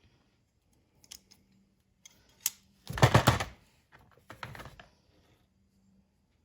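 Clicks and clatter of a Cleco fastener kit being handled: a few light clicks, a louder rattling clatter about three seconds in, and another short run of clicks shortly after.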